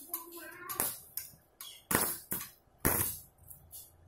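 Ziziweld ARC 2500 mini inverter stick welder striking an arc on angle iron: three short crackling bursts about a second apart, each dying out quickly as the rod sticks to the steel, then a steady crackling arc catches right at the end.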